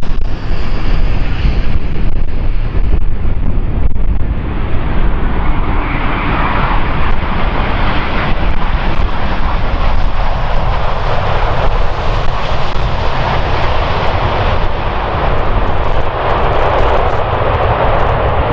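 Airbus A400M Atlas's four turboprop engines with eight-bladed propellers at takeoff power, a loud, steady, rushing engine noise as the airlifter takes off and climbs away.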